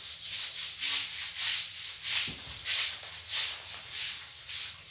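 Long-handled floor brush scrubbing a wet, soapy tiled floor in back-and-forth strokes, about two scratchy swishes a second.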